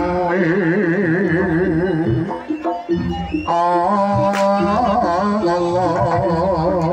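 Live Javanese jaranan music: a wavering, vibrato-laden lead melody over the ensemble's drums and gongs, with a short break about three seconds in before the melody comes back.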